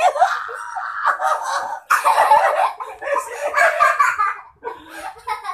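People laughing in repeated breathy bursts.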